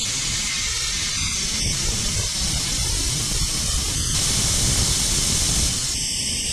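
Compressed air hissing steadily from a blower nozzle held across the end of a quarter-inch poly tube, a little louder from about four seconds in. The air rushing past the tube end makes a vacuum that sucks leftover coolant out of a head-bolt hole in the engine block.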